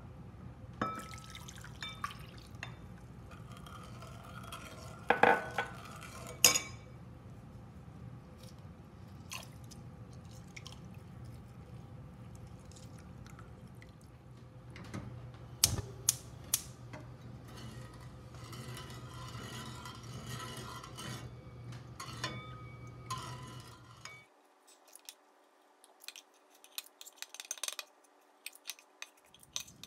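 A metal ladle stirring a liquid sauce in a stainless steel bowl, sloshing and clinking sharply against the bowl a few times, over a steady low hum. Near the end the hum cuts off and quieter small wet slaps follow as raw ground pork is pressed into meatballs by hand.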